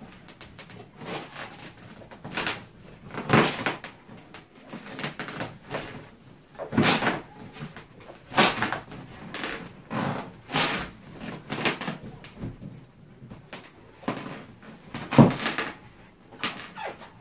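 Large latex balloon being sat and bounced on, its rubber squeaking and rubbing against fur, with irregular thumps and creaks every second or two.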